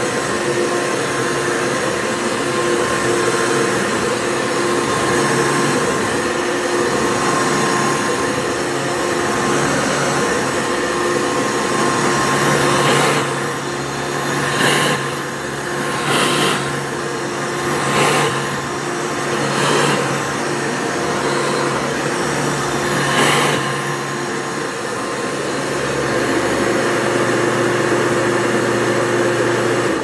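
Hoover Caddy Vac upright vacuum cleaner running steadily with a constant motor hum as it is pushed over a rug. Midway, its sound swells louder about every second and a half, six times, with each forward and back stroke close by.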